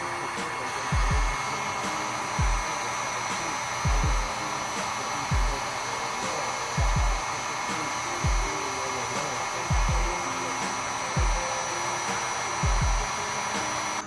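Handheld heat gun blowing hot air steadily, with a fan whine, onto a circuit board to melt the solder under a chip. Underneath, background music with a deep beat about every second and a half.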